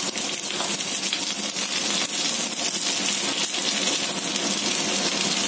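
Chopped onion and green capsicum sizzling in hot oil in a tawa, a steady hiss, with light scattered ticks and scrapes from a spatula stirring them.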